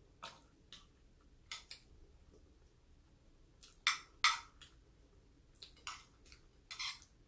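Metal spoon and fork clinking and scraping against a plate while scooping rice and food: scattered short clicks, the loudest two close together about four seconds in.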